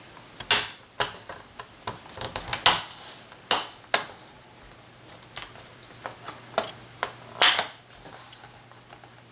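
Plastic screen bezel of an HP ProBook 4440s laptop being pressed onto the display lid, its clips snapping into place: a scattered series of sharp clicks, the loudest about half a second in and about seven and a half seconds in.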